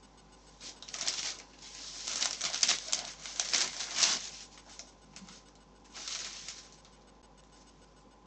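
Brown paper bag rustling and crinkling as a hand rummages in it and pulls out a burger: a long spell of crackling, then a shorter one about six seconds in.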